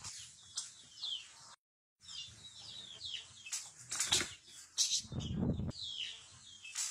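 Chickens squabbling: repeated short, high chirps that fall in pitch, mixed with bursts of wing flapping and scuffling. The sound drops out completely for a moment about one and a half seconds in.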